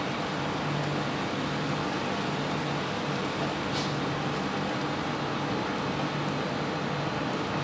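Commercial kitchen machinery running: a steady machine hum with a low drone, with a brief faint hiss about halfway through.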